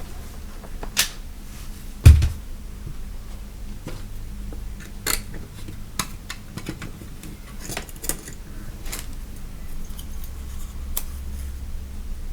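Small metal tools clicking and tapping as they are handled at a workbench, with one louder thump about two seconds in.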